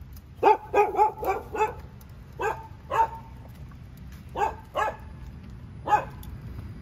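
A dog barking off and on, about ten short barks in three bursts, over a low steady background rumble.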